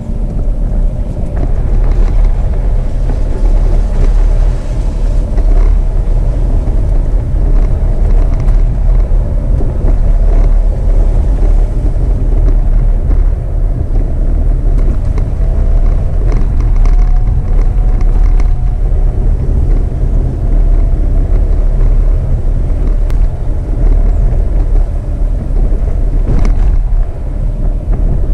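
Jeep Renegade driving on a dirt road: a loud, steady low rumble from tyres and engine, with a faint engine tone wavering slightly in pitch. A couple of short knocks near the end.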